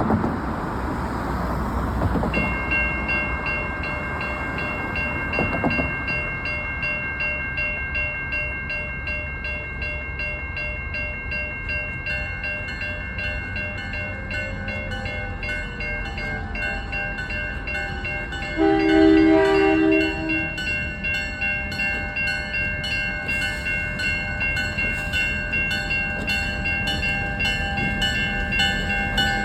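A railway crossing bell rings steadily from about two seconds in as a CN freight train approaches. About two-thirds of the way through, the locomotive's horn sounds one short chord, and the horn starts again at the very end.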